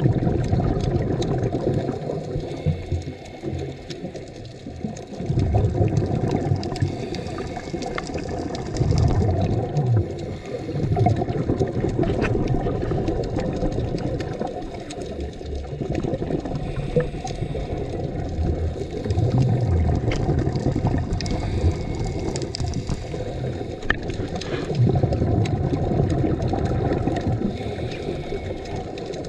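Scuba diver's regulator breathing and bursts of exhaled bubbles heard underwater, muffled and low, swelling every few seconds with each breath.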